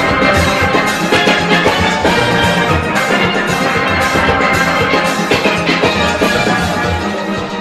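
A full steel orchestra playing an up-tempo arrangement: massed steelpans, from small lead pans to barrel-sized bass pans, over a drum kit and conga rhythm section, running continuously at full volume.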